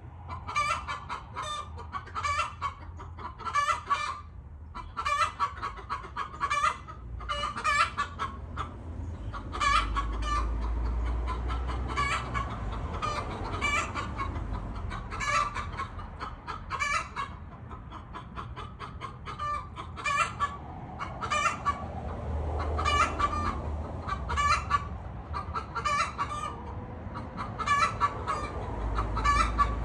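Hens clucking and cackling in short, sharp calls, about one or two a second, as they squabble over the one nest box they all want to lay in. A low rumble swells up under the calls a few times.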